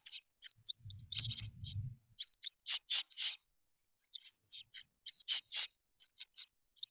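Blue tit nestlings cheeping: short, high calls in quick, irregular clusters. About a second in there is also a low rustling rumble lasting about a second as the chicks shuffle against the nest material.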